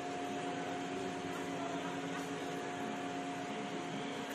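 A steady mechanical hum with a few constant tones over an even hiss.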